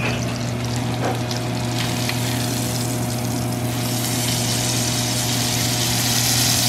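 Smoked pork chop sizzling in oil in a frying pan as it is turned with tongs, the sizzle growing louder about four seconds in. A steady low mechanical hum runs underneath.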